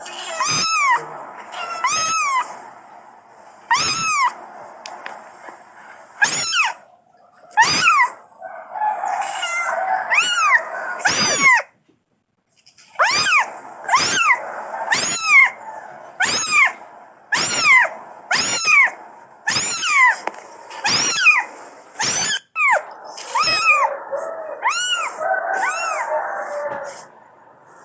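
Angora kitten meowing over and over, short high-pitched calls rising and falling in pitch, about one a second, with a short break about halfway. These are the calls of a kitten looking for its mother.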